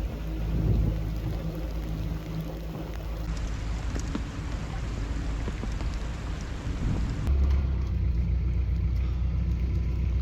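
Narrowboat's diesel engine running steadily at low revs, with scattered small ticks of hail on the boat. Its low note grows stronger about seven seconds in.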